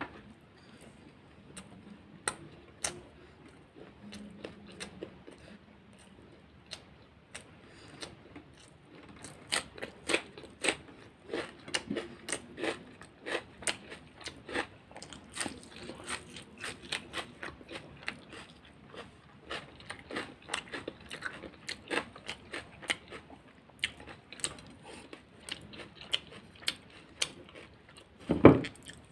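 A person biting and chewing crisp food close to the microphone: many sharp crunches, sparse at first and coming thick and fast from about a third of the way in. Near the end there is a single loud low thump.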